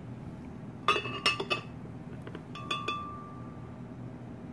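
Glass kitchenware clinking: a quick cluster of knocks about a second in, then two more a second and a half later, one leaving a short ringing tone that fades.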